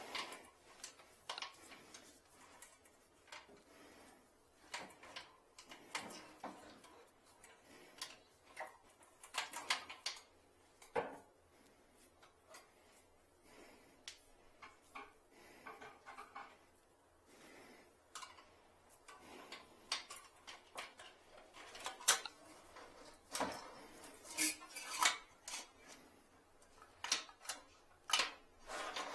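Wire coat hanger knocking and scraping against the porcelain of a toilet bowl as it is worked into the trap, in irregular clicks and scrapes that grow louder in the last third.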